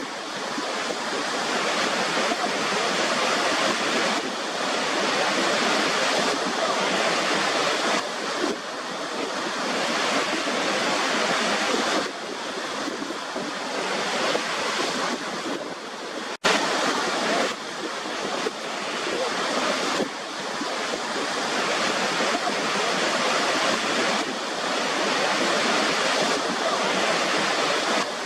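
Waterfall rushing in a steady, dense roar of falling water. It cuts out for a split second a little past halfway, then resumes.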